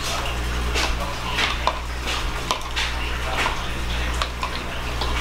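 A metal spoon stirring a milk-and-cornstarch slurry in a glass measuring cup, clinking irregularly against the glass.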